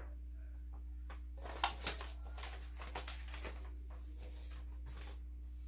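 Paper greeting cards rustling and tapping lightly as they are set upright on a table, a scatter of soft clicks and rustles, loudest in the first half, over a steady low hum.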